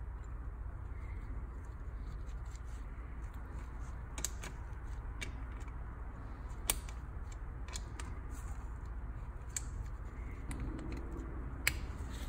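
Light, irregular metallic clicks and ticks of bolts being fitted into a Honda CR125's aluminium crankcase and run down with a wrench, with a few sharper clicks among them.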